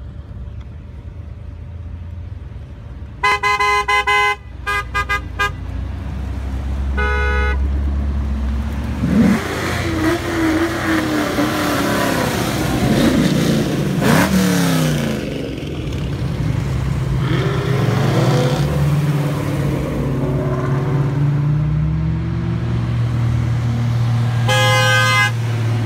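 A procession of muscle cars driving past close by, engines rumbling and revving as each one goes by. Car horns honk: a long honk and a string of quick toots a few seconds in, another short honk soon after, and another near the end.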